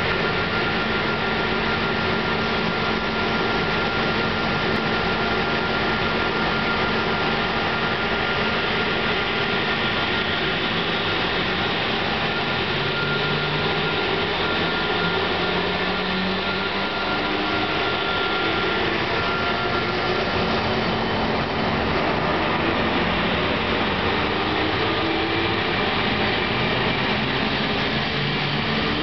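SNCB class 11 and class 21 electric locomotives hauling a passenger train past. Steady electrical whines from the traction equipment sound over the running noise of the wheels on the rails, and a whine rises in pitch near the end as the train gathers speed.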